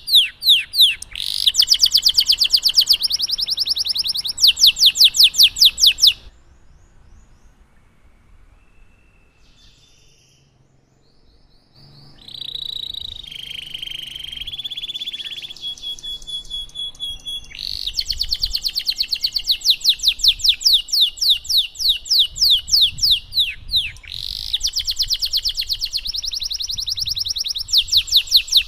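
Domestic canary singing, with long rolls of rapid, evenly repeated high notes. The song drops off for several seconds about six seconds in, resumes with a different trill, then breaks again into long rapid rolls.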